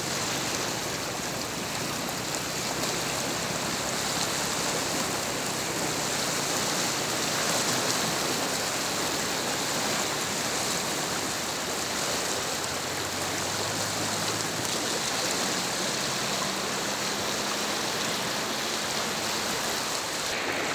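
Swollen river in flood: fast brown floodwater rushing and churning, a steady rushing noise.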